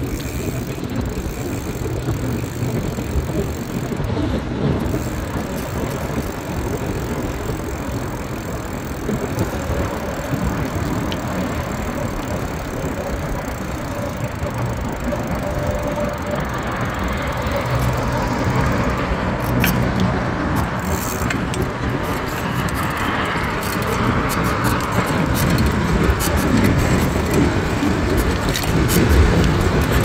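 Dense city street traffic: a steady rumble of engines and tyres. It grows louder through the second half, with sharp clicks and clatter mixed in.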